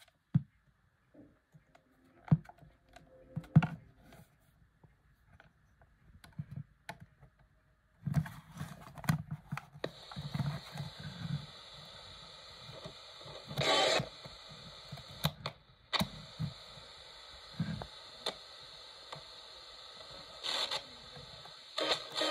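Small plastic slide switches on a Sanyo M-GR62 portable cassette radio clicking and being handled, then from about ten seconds in the radio gives a steady static hiss as its tuning wheel is turned between stations, with two brief louder bursts.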